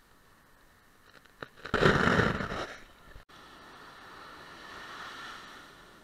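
Ocean surf breaking on a sandy beach: a loud wave crash surges in a little under two seconds in and dies away after about a second, then the sound breaks off abruptly and a softer wash of surf swells and eases.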